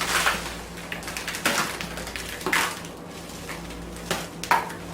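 A series of about five sudden wet splats and smacks, a second or so apart, as pies or slime land on a person; the last two come close together near the end.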